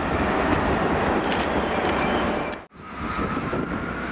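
GWR Class 43 HST diesel power car running past, a steady diesel rumble with rail noise. It cuts off abruptly about two and a half seconds in. A steady thin whine then sets in as a Class 158 diesel unit approaches.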